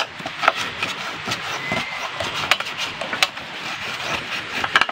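Irregular light clicks and taps from handling a partly disassembled chainsaw, over a steady background hiss.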